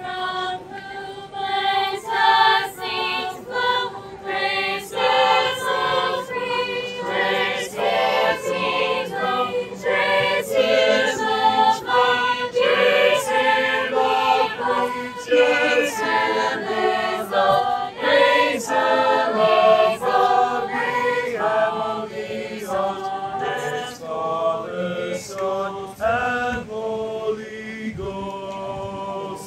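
High school chamber choir singing a cappella in parts, unamplified, moving through sustained chords. The singing tails off near the end.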